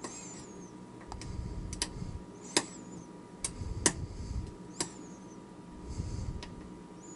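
Lock picking on a cast-aluminum mortise lock cylinder: a series of sharp, irregular clicks as the pick and tension wrench work the pins, with low handling rumbles between them.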